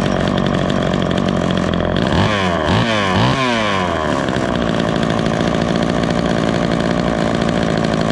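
Homelite two-stroke chainsaw running, with its low-speed carburetor needle being turned with a screwdriver. About two seconds in, the revs rise and fall a few times in quick succession, then it settles back to a steady run.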